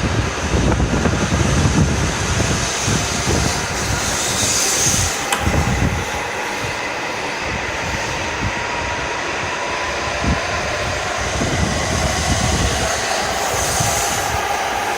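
W7 series Shinkansen train pulling out of the station: a loud, steady rumble of wheels and running gear with uneven low thumps, and a thin motor whine coming in about halfway through.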